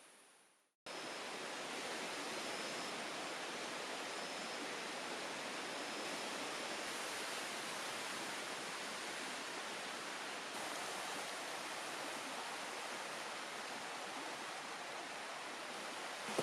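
Forest stream rushing steadily. It comes in suddenly about a second in, after a moment of silence. A few faint, short, high chirps sound between about two and six seconds in.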